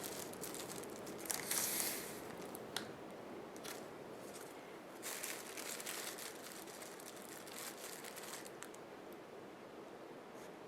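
Faint, intermittent rustling and crinkling of craft materials being handled, with a few light clicks.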